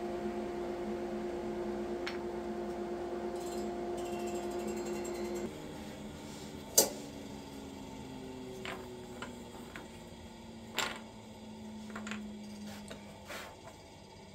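Table saw running steadily, then switched off about five seconds in, its motor winding down with a slowly falling hum. Cut wooden blocks are knocked and set down on the saw table: one sharp knock soon after the switch-off, then several lighter ones.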